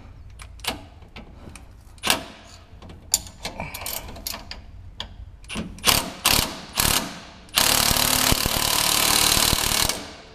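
Scattered metal clicks and clinks of tools on a shock-mount bolt. Then, about seven and a half seconds in, a cordless impact wrench hammers for about two and a half seconds and cuts off. It is driving the bolt in its low-torque safety mode, which cannot reach the 100 ft-lb spec.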